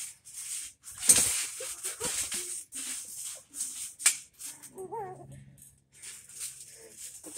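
Trampoline springs and mat rattling and rustling under two kids bouncing and wrestling, in short noisy bursts about two a second. A short wavering cry comes about five seconds in.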